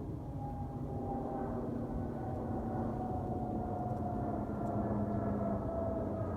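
Jet airliner's engines, a steady rumble with a whine that slowly falls in pitch while growing louder.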